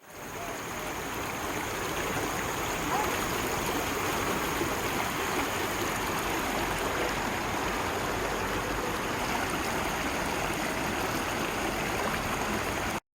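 Mountain valley stream rushing over rocks, a steady flow of water. It fades in at the start and cuts off just before the end.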